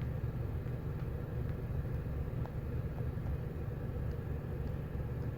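Steady low background rumble with a faint hiss, and a few faint ticks.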